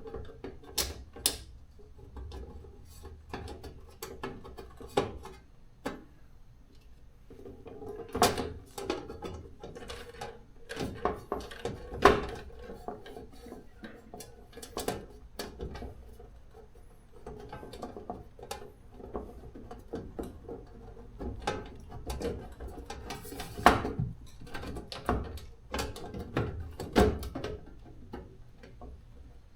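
Fine-threaded screws being driven by hand into the metal cover of a garage door opener, with irregular clicks and knocks of the screwdriver and metal parts.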